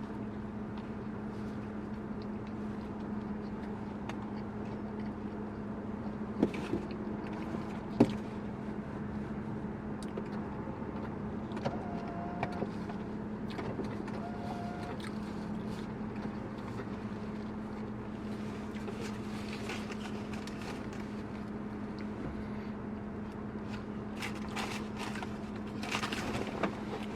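Steady low hum of a car heard from inside the cabin, with a couple of sharp clicks about six and eight seconds in.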